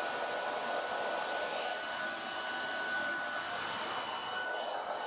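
Handheld hair dryer running steadily, blowing into an ankle sock stretched over its nozzle: a steady rush of air with a thin high whine from the motor and fan.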